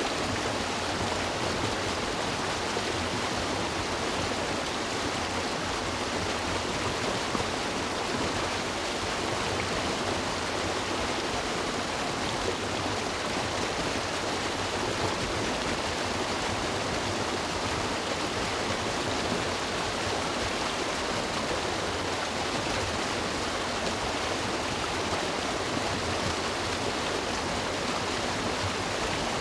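River water flowing and rushing with a steady, even sound.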